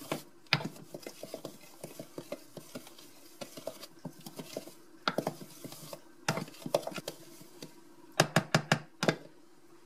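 Wooden spoon stirring dry corn flour and cassava flour in a plastic measuring jug: a run of quick light taps and scrapes against the jug, with a few louder knocks bunched near the end.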